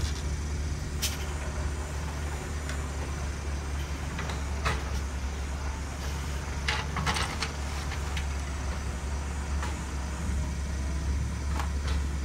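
Heavy diesel engine running steadily at low revs, a deep continuous rumble. A few sharp knocks and clatters sound over it at scattered moments.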